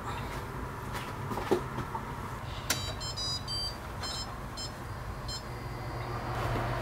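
A light knock, then a run of about seven short electronic beeps over two and a half seconds from a kitchen appliance's touch buttons being pressed, over a steady low hum.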